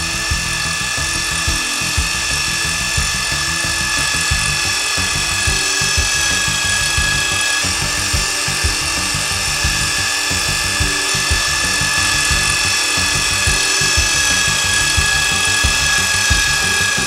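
Milwaukee Hole Hawg drill running steadily in reverse to crank a GRCS friction-lowering winch in its low gear range, winding in the rigging line. It makes a steady high whine over an irregular low clatter.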